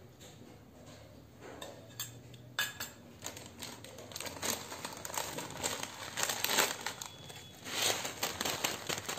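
A plastic packet of bhujia crinkling and rustling as it is handled and opened, growing busier from about a second and a half in, with a few sharp clicks around two seconds in.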